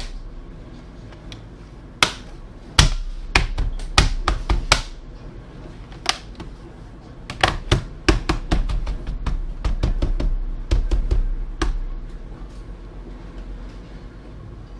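Plastic bottom cover of a Dell Inspiron 15 5000 laptop pressed onto the chassis by hand: a series of sharp clicks as its clips snap into place. They come in bursts, about two to five seconds in, around eight seconds, and again around ten to eleven seconds.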